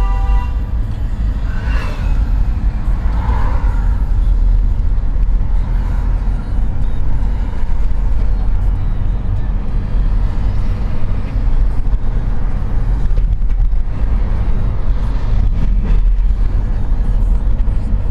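Car driving through city traffic, heard from inside the cabin: a steady low rumble of engine and road noise.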